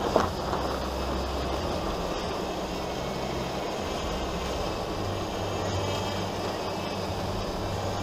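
A Jeep driving along a dirt off-road trail: steady engine and tyre noise, with a sharp knock just at the start.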